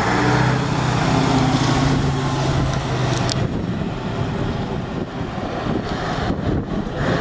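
Diesel engine of a classic cabover truck tractor unit pulling away at low speed, holding a steady engine note. The note fades about three and a half seconds in as the truck moves off, leaving a general background rumble.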